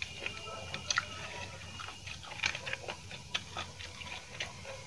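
Close-miked hand-eating sounds: fingers squishing and mixing rice with tomato-chili fish paste on a steel plate, then chewing. Scattered soft, wet clicks come at irregular moments.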